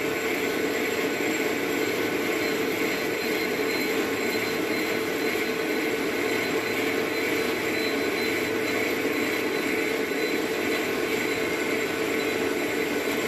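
Metal lathe running steadily while turning a phosphor bronze bushing with a carbide-tipped tool. It makes an even machine hum with a higher whine that does not change.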